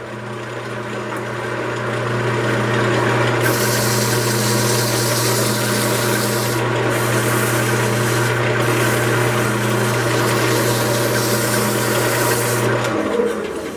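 Wood lathe running with a steady motor hum while 220-grit sandpaper is held against the spinning wooden tankard, giving a rubbing hiss from about three seconds in that breaks off briefly twice. Near the end the sanding stops and the lathe's hum cuts out.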